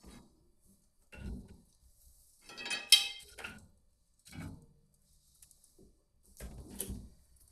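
Hard objects being handled: four short bouts of clattering and knocking, the loudest a sharp knock about three seconds in.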